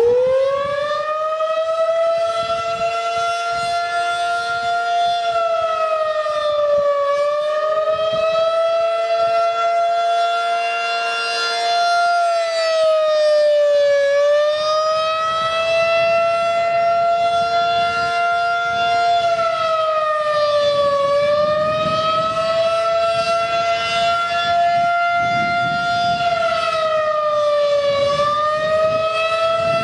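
Federal Signal 2001-SRN rotating outdoor warning siren sounding a steady tone during a routine test. It levels off at full pitch in the first second or two, then holds, with a slight dip in pitch and loudness about every seven seconds as the rotating horn turns away and back.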